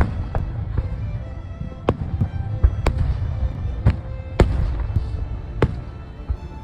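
Aerial fireworks going off in a string of sharp bangs, roughly one a second, some followed by crackling, over background music.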